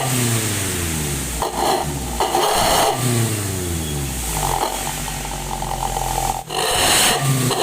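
Car engine revved through a Suos 'ngorok' aftermarket exhaust, blipped several times with the note dropping back after each blip. It holds steadier for a while, breaks off suddenly near the end, then comes back louder.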